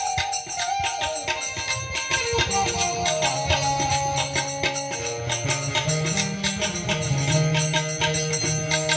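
Instrumental passage of Indian devotional bhajan music: fast, steady jingling hand percussion over held melody notes, with low sustained notes joining a few seconds in.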